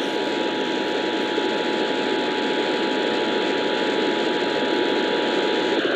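Emergency Alert System two-tone attention signal, two steady tones sounding together over heavy radio static, cutting off just before the end. It is the alert tone that announces an EAS required monthly test.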